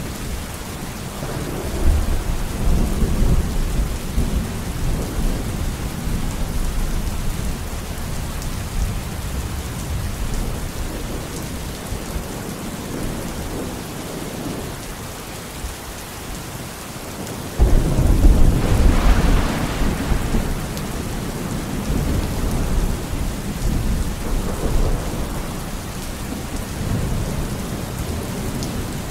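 Steady heavy rain with thunder. A low rumble rolls in about two seconds in, and just past halfway a sudden, louder thunderclap cracks and then rumbles on for several seconds.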